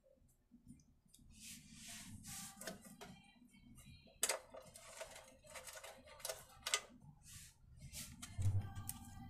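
Clicks, taps and rustles of hands working on a petrol generator's recoil starter cover and plug lead, with a low thud near the end.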